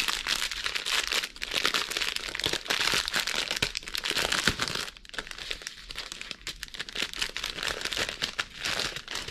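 Plastic packaging crinkling as hands unroll and handle a strip of small plastic bags of diamond-painting drills in a clear plastic sleeve. Louder for about the first five seconds, then softer.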